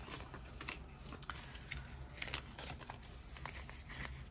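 Canadian polymer banknotes crinkling and crackling in the hands as they are counted out and folded, a run of short, irregular crinkles.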